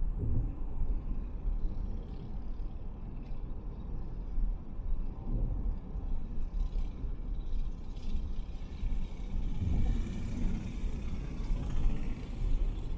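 Car road noise on an expressway: a steady low tyre and engine rumble, with a few brief low thumps and more hiss from about two-thirds of the way in.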